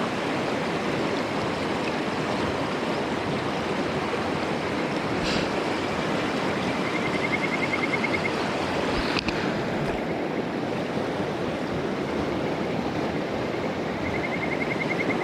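Steady rush of a river running high and fast after heavy rain. A short, high, rapid trill is heard twice, about seven and fourteen seconds in.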